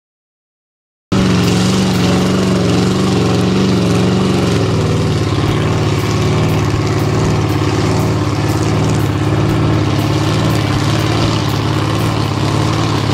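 Monster truck engine running hard and steadily as the truck paddles across a lake on its giant tires, with the tires churning up water. It starts abruptly about a second in, and its note drops a little about four seconds later.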